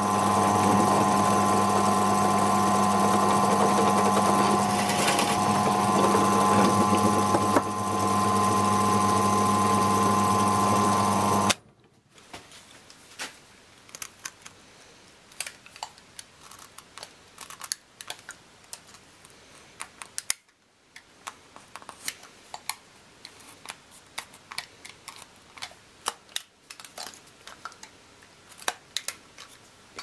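Bench drill press running steadily as a long twist bit bores into a wooden block, cutting off abruptly about 12 seconds in. After that come faint, scattered clicks and scrapes of a knife paring the wood inside the bored hole.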